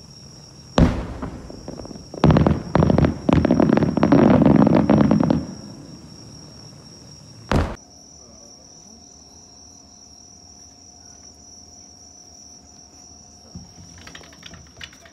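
Aerial fireworks exploding: a sharp bang about a second in, then a rapid run of crackling bangs for about three seconds, and another single bang midway. A steady high whine runs underneath.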